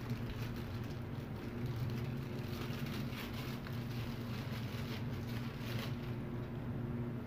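A steady low hum fills the room, with a few brief crinkles and rustles from a small plastic parts bag and metal fittings being handled.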